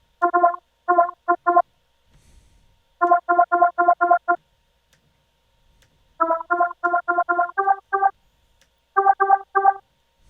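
Harmor software synthesizer playing a short, resonant square-wave lead patch: runs of brief staccato notes in four groups with pauses between them. The pitch shifts a little within the third run.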